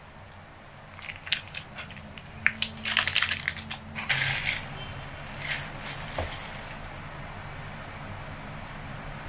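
Thin plastic crinkling as it is handled: irregular sharp crackles and rustles that build to a dense burst about four seconds in, then thin out and stop by about six and a half seconds.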